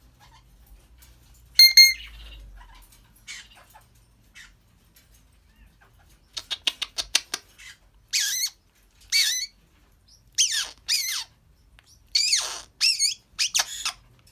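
African grey parrot calling: a short, sharp whistled squawk near the start, a quick run of about ten clicks midway, then a string of six high, wavering whistles and squawks.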